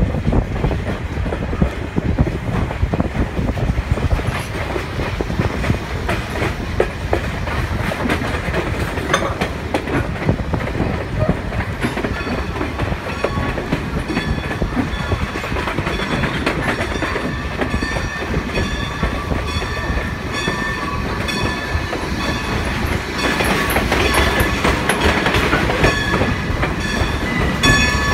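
Passenger train car rolling along the track: a steady rumble with wind and wheel clicks over the rail joints. From about halfway a high squeal of several tones comes and goes, strongest near the end as the train enters the yard's curving tracks.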